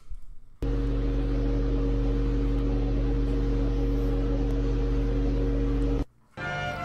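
A loud, steady droning hum with a deep buzz under it, starting suddenly under a second in and cutting off suddenly about six seconds in.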